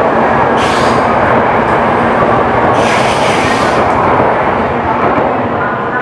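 A Shinkansen bullet train running past on the adjacent track: a loud, steady rushing that eases near the end as the last cars clear. Two brief hisses come about a second in and about three seconds in.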